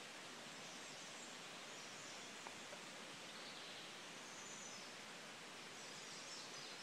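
Faint, steady outdoor background hiss, with no distinct sound standing out.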